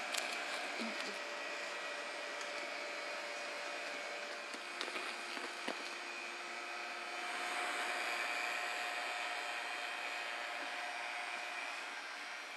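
Vacuum-bagging pump running steadily with a rushing hiss as it draws the bag down over a freshly wet-out fiberglass layup on a foam-core beam. There are a few light ticks about five seconds in, and the hiss swells a little for a couple of seconds past the middle.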